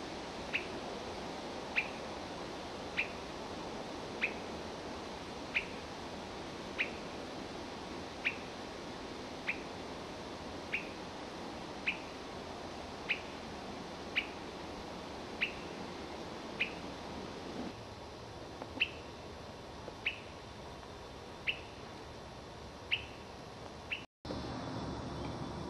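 Swainson's thrush giving a short, sharp call note over and over, about one every second and a quarter, over a steady low background hiss.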